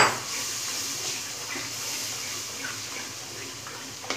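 Milk sizzling and bubbling in hot ghee-roasted semolina in a wok as a wooden spatula stirs and scrapes through it, with one sharp knock right at the start.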